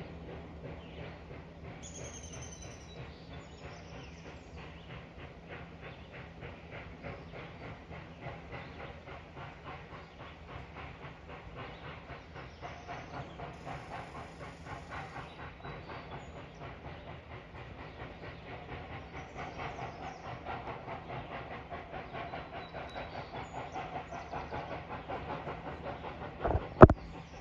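A 2-6-2 steam locomotive approaching out of sight, heard as a rapid, even rhythmic beat that grows steadily louder. A single sharp, loud knock comes near the end.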